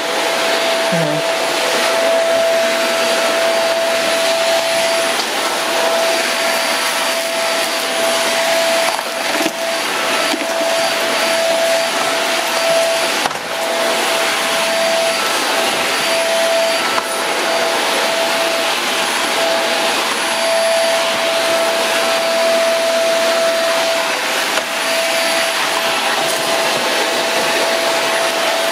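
Corded cyclonic stick vacuum running steadily as it is pushed across a hardwood floor: a rush of air with a steady high motor whine over it.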